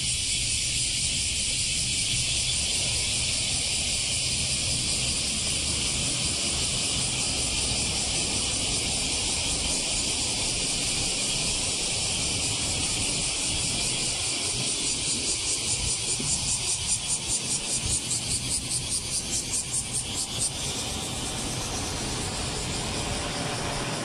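Chorus of cicadas singing loudly from roadside trees, a dense high-pitched buzz. In the second half it swells into a regular pulsing of about three beats a second for several seconds before settling back into a steady drone.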